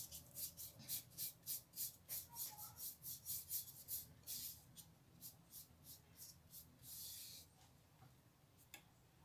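Faint paintbrush strokes scratching white paint onto a cardboard frame, quick short swishes about four a second. After about four seconds they thin out, with one longer stroke near the seventh second, then they stop.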